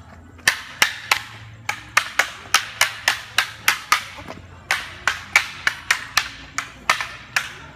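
Two double-ended kung fu staffs clacking together in a rapid series of sharp strikes, about three a second, in a two-person staff sparring drill, with a brief pause about four seconds in.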